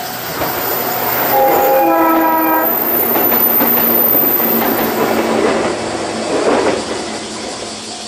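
JR 103 series electric train sounding its horn for about a second and a half, then running past with wheel and rail-joint clatter that fades near the end. A level-crossing bell rings before the horn.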